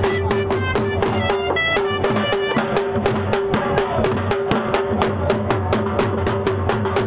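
Live attan folk music: a dhol drum beating fast, even strokes under a surnai (double-reed pipe) holding a steady note, with short high melody notes over the first couple of seconds.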